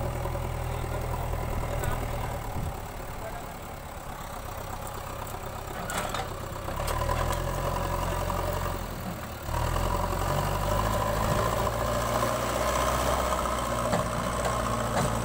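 JCB 3DX backhoe loader's diesel engine running. It drops to a lower, quieter note for a few seconds, then revs up about seven seconds in and again near ten seconds, where it holds a higher working note as the loader bucket pushes a concrete pipe.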